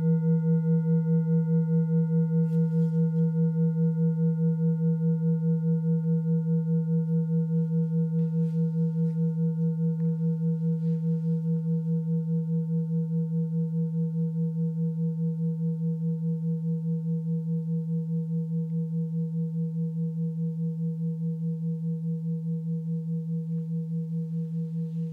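Large Tibetan singing bowl ringing out after a mallet strike: a deep, steady hum with clear higher overtones, wavering in a slow regular pulse and fading gradually.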